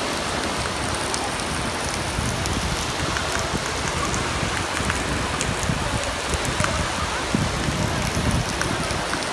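Small sea waves breaking and washing up a sandy shore: a steady hiss of surf, with wind rumbling on the microphone.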